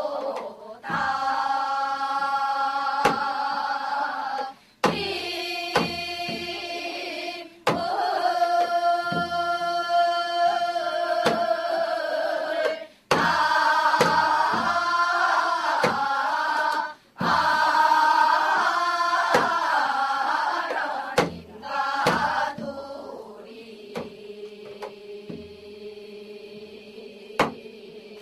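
A chorus singing a Gyeonggi folk song (Gyeonggi sori) in long phrases with short breaks between them, with janggu hourglass-drum strokes marking the beat. The singing is softer over the last few seconds.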